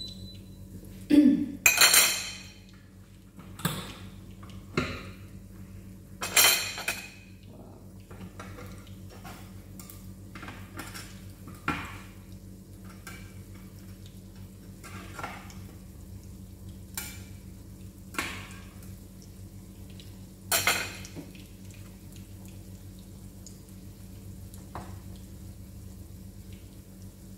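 Clanks and scrapes of a pan, plate and cooking utensils being handled at a stove, in separate knocks every few seconds. The loudest come about one to two seconds in, around six seconds and around twenty seconds, over a steady low hum.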